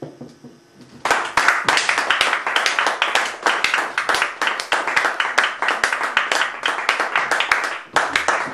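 Audience applauding, starting about a second in: many hands clapping together.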